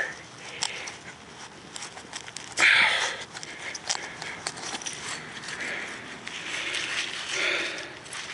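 Gloved hand scraping and clawing at packed dirt around a buried glass bottle: crumbling soil, pebbles and glass shards clicking and rattling, with a louder rush of noise about two and a half seconds in.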